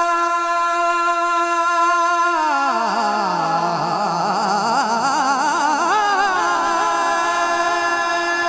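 Wordless naat singing: a steady held drone note, over which a voice glides down in a wavering, ornamented melody from about two and a half seconds in, then returns to the held note near the end.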